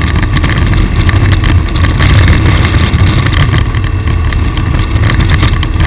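Moving vehicle's engine and road noise, loud and steady with a heavy low rumble, and no siren.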